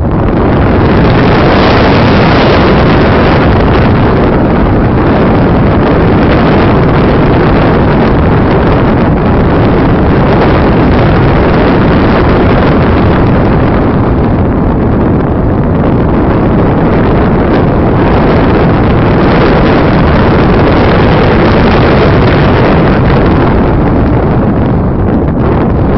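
Loud, steady rush of airflow buffeting the onboard phone microphone of a radio-controlled slope glider in flight. It comes in suddenly at the start and holds with no engine note.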